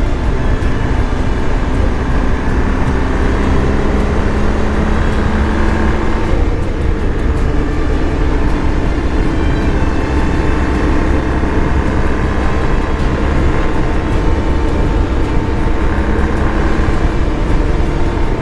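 BMW R 1250 GS Adventure's boxer twin engine running under way, with the engine note shifting about six and a half seconds in.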